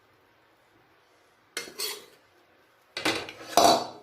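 A metal spoon scraping and clinking against a pressure cooker while potato masala is spooned in. Two short scrapes come about a second and a half in, then a louder clatter near the end.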